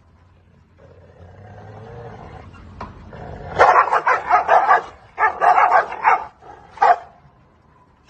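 Dog barking in two quick runs of barks and then once more, after a quieter low growl.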